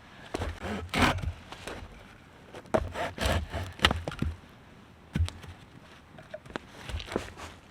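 Dry firewood being handled and broken: sticks cracking and snapping in irregular bursts, with dull knocks of wood on wood.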